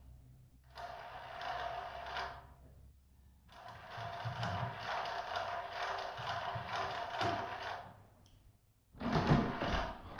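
Plastic cat toy rattling and rolling as a cat paws at it, in spurts a few seconds long with short pauses between, loudest near the end.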